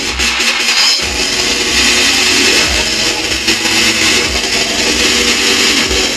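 Speedcore played loud by a DJ over the venue's sound system: a dense wall of harsh, distorted noise with low kick-drum thumps underneath.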